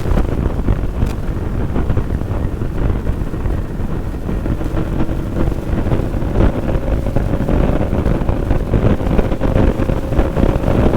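Heavy wind buffeting on the microphone over a Bajaj Pulsar NS200 single-cylinder motorcycle ridden at speed. From about halfway through, a faint engine tone rises through the wind, slowly climbing in pitch.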